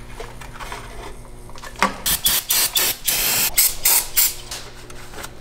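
Aerosol spray can sprayed at the engine in a series of short hissing bursts with one longer spray, starting about two seconds in.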